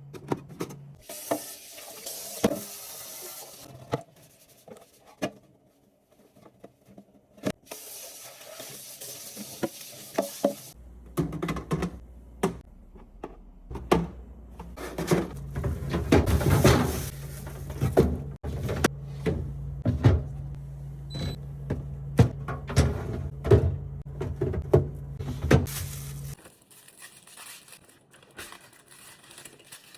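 Items being handled in and around a fridge during cleaning and restocking: repeated knocks, clicks and clatter of containers and shelves being set down. There are two stretches of hissing, and a steady low hum through the middle that stops abruptly.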